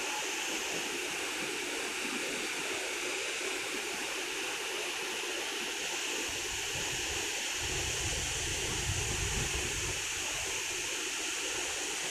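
Waterfall with a steady, even rush of falling water. A low rumble joins in about halfway through.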